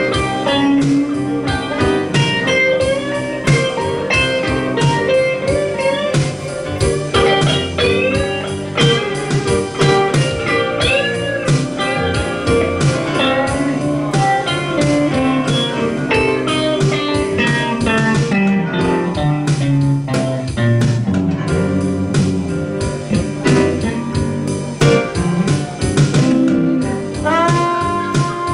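Live blues band playing: an electric guitar solo with bent notes over bass, keyboard and a steady beat. Near the end a trombone comes in with a long held note.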